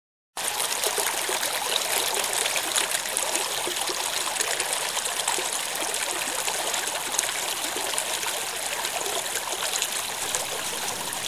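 Steady rushing of running water, even and unbroken, starting suddenly after a moment of silence.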